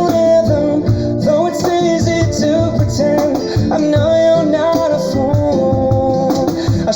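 Slow pop ballad playing, a gliding melody line over sustained chords, with a steady low beat struck on a cajon along with the recording.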